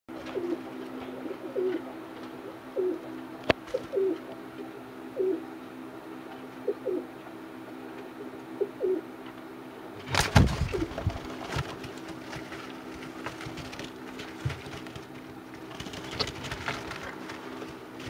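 Young roller pigeons cooing in short calls, about one a second, over a steady low hum. About ten seconds in, a loud burst of wing flapping, then scattered rustling and flapping near the end.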